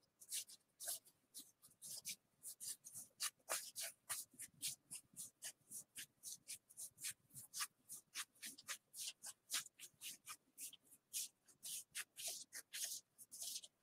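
Baseball trading cards being flicked through one by one: a quick run of short, papery rasps as each card slides off the stack, about three or four a second.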